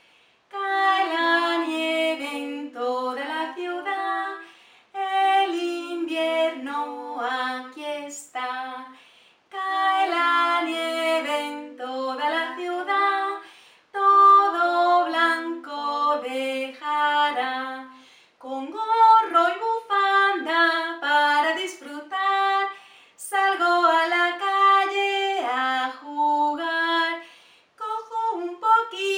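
A woman singing a children's song about falling snow in Spanish, unaccompanied, in phrases of about four seconds with short breaks between them.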